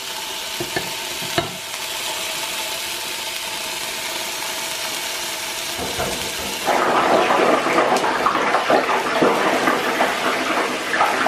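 Porterhouse steaks sizzling steadily in an electric frying pan. About two-thirds of the way in a louder, busier sound takes over.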